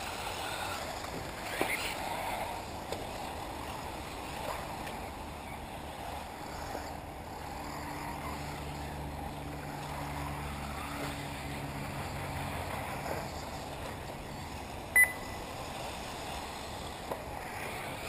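Steady outdoor noise of 1/8-scale electric RC buggies running on a dirt track, with no clear single event. A single short, sharp beep sounds about 15 seconds in.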